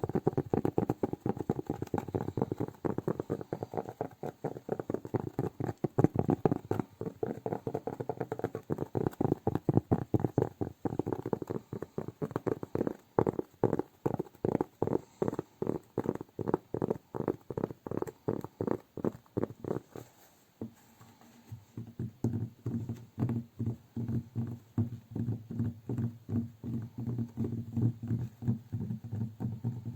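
Fingertips tapping on cork, quick and dense at first, then settling into an even beat of about three taps a second in the middle. Just past the twenty-second mark the taps turn softer and duller.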